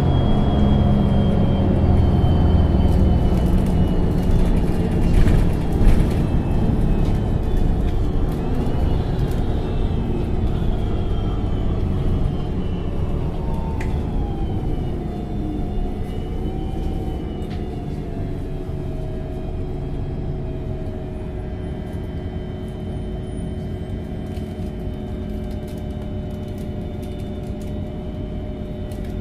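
MAN NG273T4 LPG articulated city bus running. Its low engine rumble is loudest in the first few seconds, then eases off as several steady whining tones glide down around the middle and settle.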